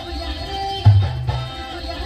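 Music with drums and held melodic notes; a heavy low drum hit lands about a second in.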